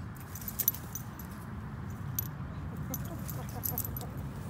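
Metal tags and harness fittings on playing dogs jingling and clinking, in scattered short jingles with the sharpest clink about two-thirds of a second in, over a steady low rumble.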